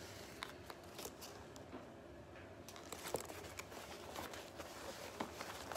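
Faint rustling and a few light clicks of a quilted fabric tote bag being handled and turned over.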